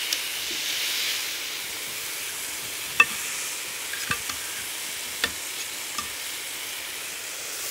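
Marinade-glazed chicken sizzling on a hot grill pan, a steady hiss. Metal tongs click against a ceramic baking dish about five times, sharpest about three seconds in, as they scoop and stir the marinade.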